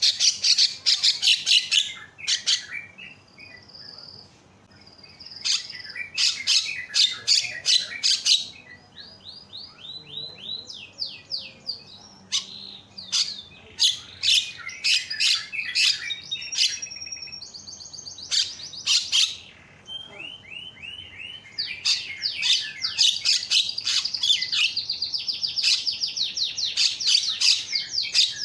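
Javan myna singing: bursts of rapid harsh chattering notes alternating with runs of quick whistled sweeps, busiest and loudest over the last several seconds.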